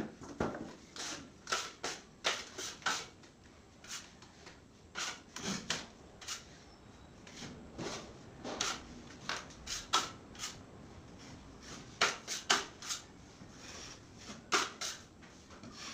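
Metal putty knife scraping joint compound along a Hardiflex fiber-cement ceiling seam and off a hawk, in irregular short strokes with quieter pauses between.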